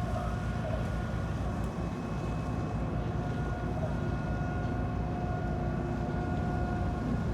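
Car ferry Kogane Maru's engines and machinery running during departure: a steady low rumble with an even whine on top.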